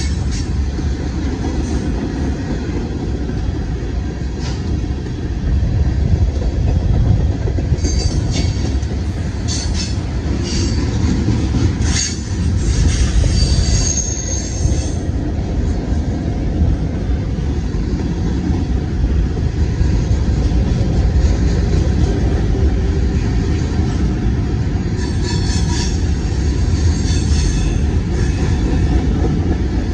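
Freight train cars (covered hoppers, gondolas and tank cars) rolling past close by: a steady heavy rumble of steel wheels on rail, with high-pitched wheel squeal coming and going about a quarter of the way in and again near the end.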